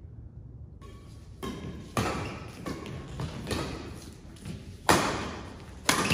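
Badminton rackets hitting a shuttlecock in a doubles rally: sharp, echoing cracks, a lighter one about one and a half seconds in and louder hits about two, five and six seconds in, with smaller taps between.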